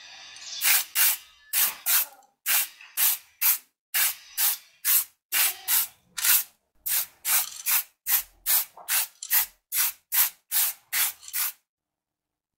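Aerosol spray paint can sprayed in many short bursts, about two or three a second, each a sharp hiss, stopping shortly before the end.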